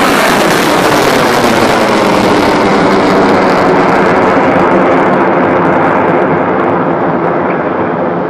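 Antares rocket's first-stage engines, two kerosene-fuelled AJ26s, heard during the ascent just after liftoff: a loud, steady crackling rumble that slowly fades and grows duller near the end as the rocket climbs away.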